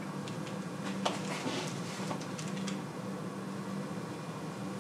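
Quiet room tone with a steady low hum, and a few faint soft rustles and ticks as a trouser leg is pushed up and the calf handled.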